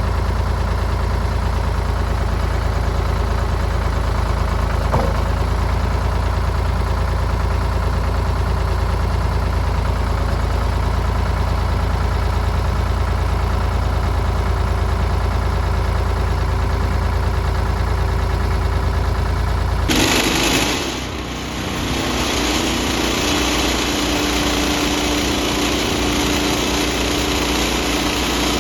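Farm tractor engine running steadily with a deep rumble. About 20 seconds in, the sound changes abruptly to a higher, brighter engine note.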